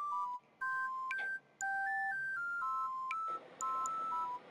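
Background music: a simple electronic melody of short, clean, beep-like notes, mostly two at a time, in short phrases broken by brief pauses. A soft hiss joins underneath about three seconds in.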